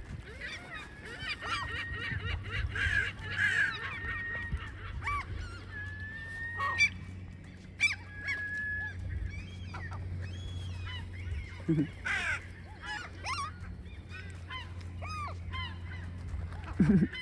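Seagulls calling over and over, many short arching cries overlapping, with a steady low hum underneath.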